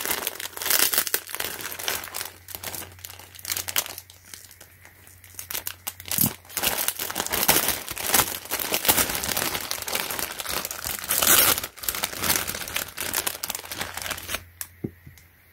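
Clear plastic bag full of foam balls crinkling and rustling as hands pull it open and handle it. There is a quieter lull about four seconds in, and the crinkling stops shortly before the end.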